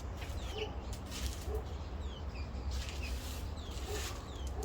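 Garden birds calling: a short, high, falling chirp repeated roughly twice a second, with soft low notes in between, over a steady low rumble.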